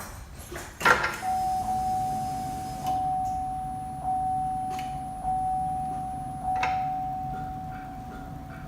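A loud click, then a 2010 Chevy Cobalt's dashboard warning chime dinging at an even pace, about once every 1.2 seconds, each ding ringing on into the next.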